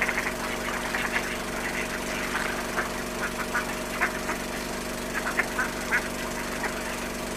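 Mallard ducks quacking in short, scattered calls over a steady low mechanical hum.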